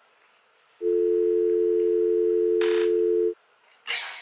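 A steady electronic two-note tone like a telephone dial tone, starting about a second in, held for about two and a half seconds, then cutting off suddenly. Near the end a short breathy burst begins.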